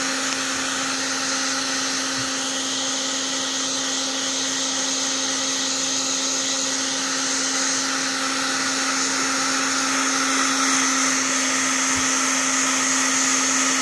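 Black & Decker heat gun running steadily on its high setting: the rush of its blower with a steady motor hum.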